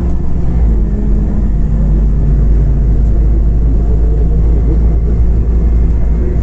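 Scania OmniCity CNG city bus under way, heard from inside the cabin: the engine runs with a steady low rumble and road noise, its tone shifting a little in pitch as the bus drives on.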